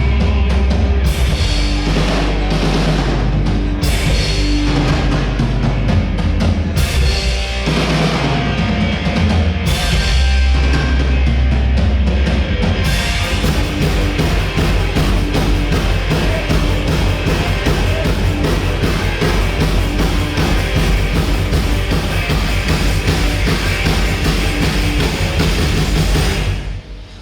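Loud heavy rock/metal-style music with a pounding bass and drum kit. About halfway through it changes to a fast, dense, driving beat, and near the end it fades out.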